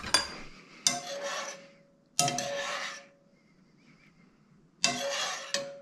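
Metal spoon scraping around the inside of a stainless-steel saucepan of soup, four rasping strokes each lasting about a second, with a faint ring from the pan after some of them.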